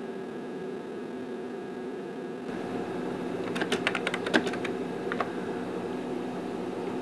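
Typing on a computer keyboard: a quick run of about ten keystrokes a little past the middle, entering a short command, over a steady hum.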